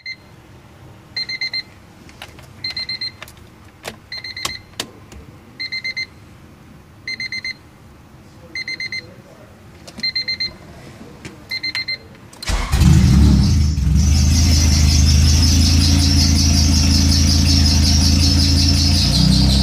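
A dashboard warning buzzer beeps about every second and a half, with a few clicks in between. About twelve seconds in, the Honda Civic's engine cranks briefly, catches and settles into a steady fast idle, with a high-pitched hiss above it.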